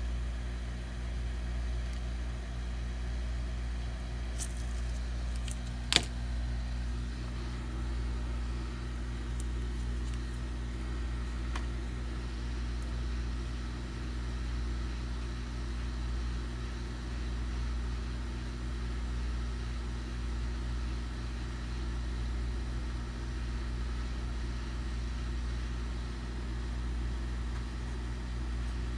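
Steady low machine hum with an even, unchanging drone, and a single sharp click about six seconds in.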